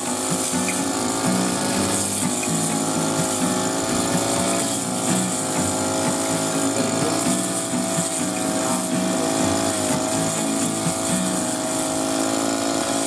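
Matsumoto MBC-300 brush cutter's engine running at high speed as its blade cuts grass. It makes a steady whine that sags briefly a few times.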